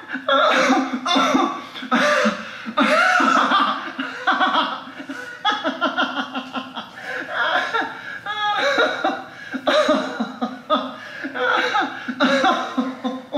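People laughing in repeated bouts, with short pauses between.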